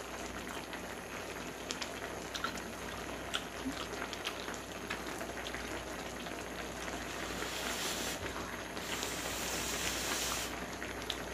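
Spam kimchi hotpot bubbling at a steady simmer, with scattered light clicks; the hiss grows louder for a couple of seconds near the end.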